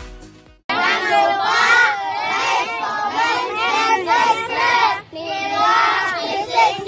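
A group of boys shouting together in unison, with a short break about five seconds in. Electronic intro music fades out in the first half-second.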